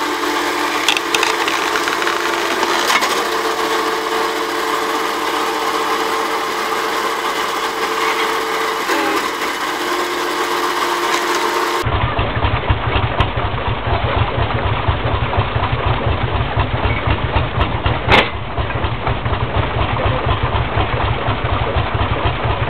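Tractor-powered hydraulic log splitter with the engine running steadily under a steady whine. Then an old belt-driven flywheel log splitter with its engine running in a fast, even pulse, and one sharp crack about 18 seconds in.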